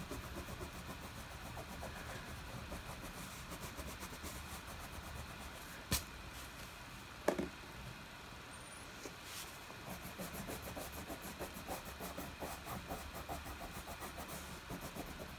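A low, steady rumble of machinery outside, a racket. Over it comes the faint rhythmic scratching of wax crayon strokes on paper, with two sharp clicks a little past the middle.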